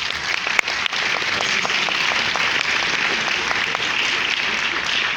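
Audience clapping, a loud steady round of applause with one sharp clap close by about half a second in.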